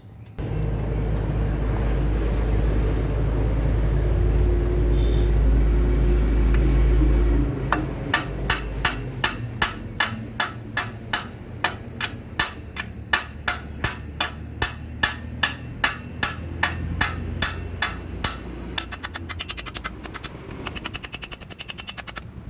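Steady hammering of metal on metal on a motorcycle's rear wheel parts, about two blows a second, turning to quicker, lighter taps near the end. This is consistent with driving out a seized rear axle. A loud low rumble fills the first seven seconds or so, before the blows begin.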